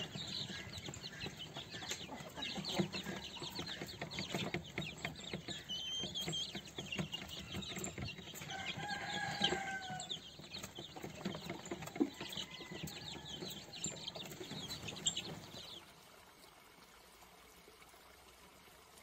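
A group of lavender Cochin chicks peeping and clucking while they peck at feed in a bowl, with many quick beak taps and one longer call about nine seconds in. Near the end the bird sounds stop and only a faint steady hiss of running water remains.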